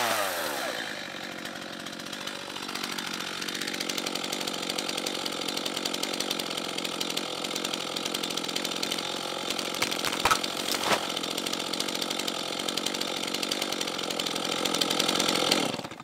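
Stihl MS 251 two-stroke chainsaw dropping off full throttle about a second in and then idling steadily. Two sharp cracks ring out about ten seconds in.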